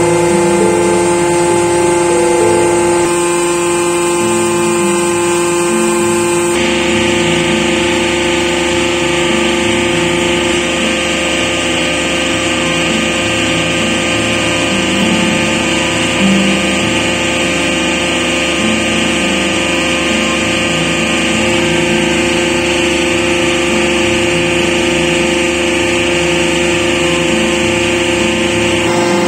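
Hydraulic test bench running steadily under load, its electric motor and pump whining with several steady tones as they drive a Kawasaki Staffa HMKB200 radial-piston hydraulic motor at about 110 litres a minute and 104 bar. The sound turns fuller and hissier about six seconds in.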